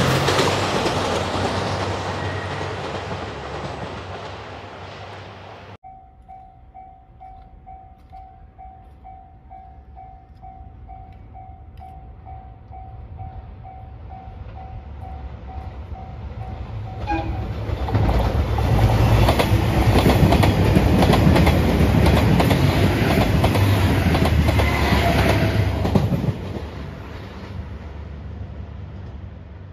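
A JR Shikoku 2700 series diesel railcar train passing and fading away, then a railway level-crossing alarm ringing in steady even pulses for about ten seconds. In the last third a diesel train runs past close by, loud wheel and engine noise that drops away a few seconds before the end.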